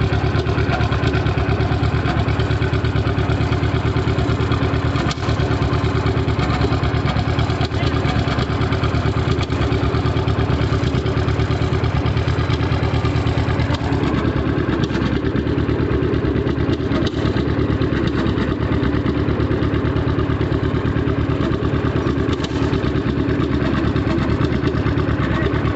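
John Deere G tractor's two-cylinder engine running steadily, its tone shifting about halfway through.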